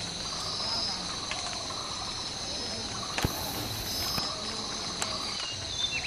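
Steady high insect drone, with short chattering calls coming and going a few times and one sharp click about three seconds in.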